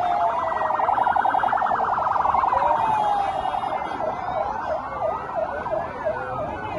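Several motorcade escort-vehicle sirens sounding at once: a slow rising and falling wail overlapping a fast warbling yelp, turning to short repeated whoops about four seconds in.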